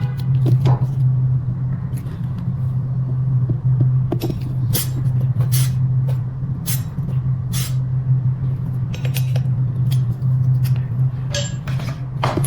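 A steady low mechanical hum, like a small motor running, with scattered sharp clicks and scrapes over it.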